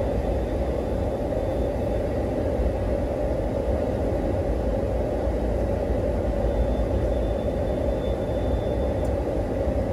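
Car running, heard from inside the cabin as a steady low rumble.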